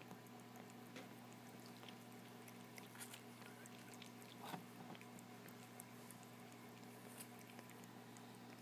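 Near silence: a steady low hum of room tone, with a few faint soft clicks of cats licking and grooming, the clearest about halfway through.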